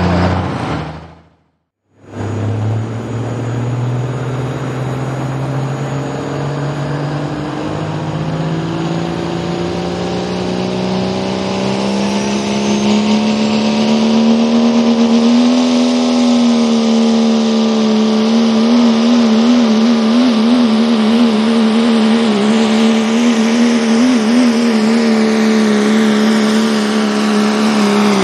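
Dodge Ram diesel pulling truck's engine under full load dragging a weight-transfer sled over a dirt track. After a brief cut-out about a second in, its revs climb steadily for around twelve seconds, then hold high with a quick wavering in pitch.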